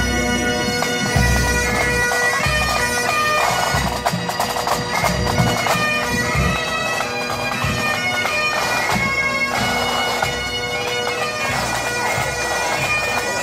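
Pipe band playing: Highland bagpipes sounding a tune over their steady drones, with drums.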